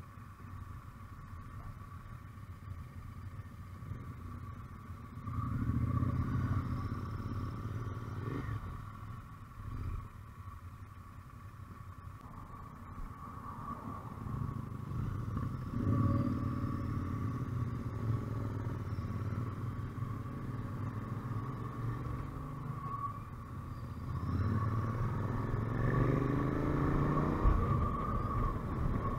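Motorcycle engines pulling away and accelerating through the gears, the engine note swelling and rising three times: about five seconds in, around fifteen seconds and again near the end.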